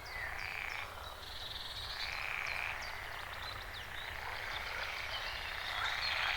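Forest ambience with several birds singing at once: many short downward-sweeping chirps and fast trills over a continuous background hiss.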